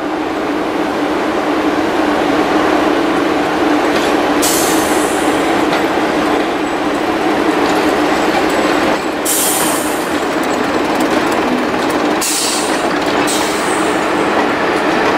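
Class 117 first-generation diesel multiple unit running past at close range, its underfloor diesel engines running steadily under the rumble of wheels on the rails. Brief high-pitched hissing squeals cut in three times, about four, nine and twelve seconds in.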